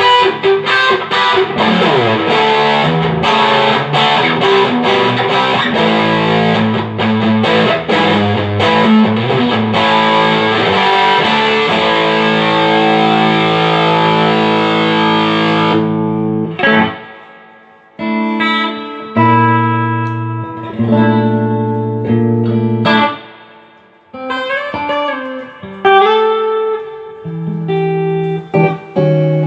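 Electric guitar played through a Fender Hot Rod Deluxe tube amp in a sound test after repair of hum, buzz and power loss. For the first half it is a dense, bright, distorted passage; a little past halfway it changes suddenly to a duller tone, with separate notes and chords and short pauses between phrases.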